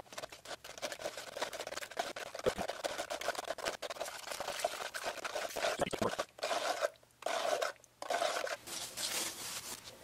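Metal spoon stirring and scraping ITC 100HT ceramic coating mixed with distilled water in a plastic tub: a continuous gritty scraping, with two short pauses about seven and eight seconds in.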